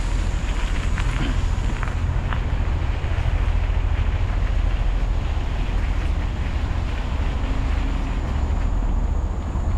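Steady low wind rumble buffeting the microphone as the camera moves along a dirt trail, with a few light clicks or rattles about one to two seconds in.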